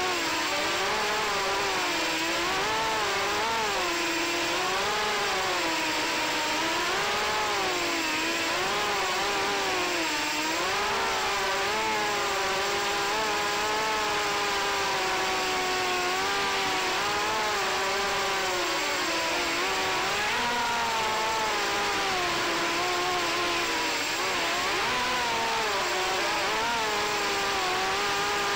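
FPV racing quadcopter's brushless motors and propellers whining, the pitch rising and falling constantly with throttle changes, over a steady hiss.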